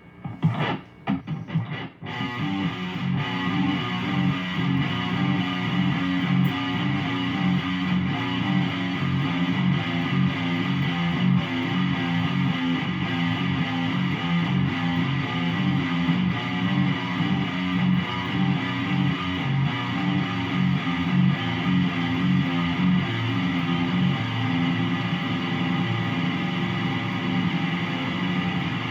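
Electric guitar tuned to drop F#. A few loud struck notes in the first two seconds lead into a continuous low riff of fast, rhythmically repeated notes.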